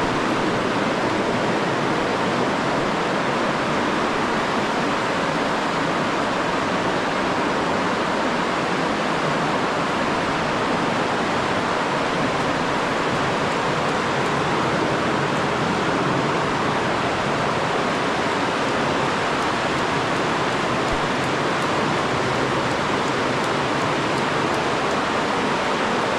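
Rushing river water, a loud, steady, unbroken rush of moving water.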